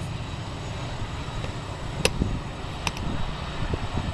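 Boeing 737-300's CFM56 jet engines running as the airliner rolls away down the runway: a steady, even rumble. Two sharp clicks come about two and three seconds in.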